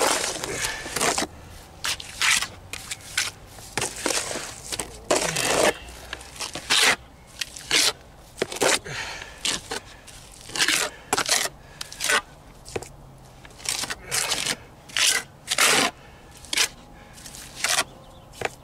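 Steel trowel scraping and spreading wet hydraulic cement over a masonry foundation wall, in repeated short, irregular strokes about one or two a second, as holes are filled and the patch is smoothed.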